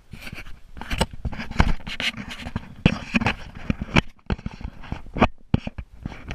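Rustling, scraping and irregular bumps of fabric and gear rubbing and knocking against a moving camera's microphone.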